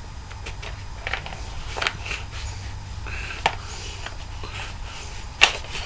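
Plastic DVD case being handled: a few soft rustles and two sharp clicks, about three and a half seconds in and, loudest, near the end, over a low steady hum.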